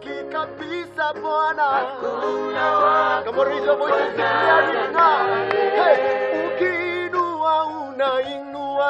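Worship song sung by a woman's and a man's voices together, over held low bass notes that change every second or so.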